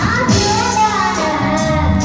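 A young girl singing into a microphone over amplified live band accompaniment, the melody gliding and holding over a steady bass line.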